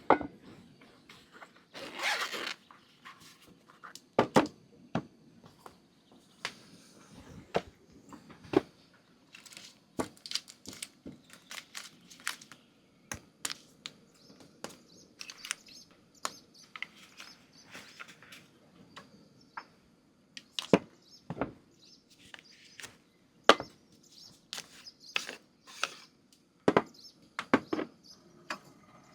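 Irregular knocks, clicks and thuds of objects being handled and set down, one every second or so, with a longer rustling scrape about two seconds in.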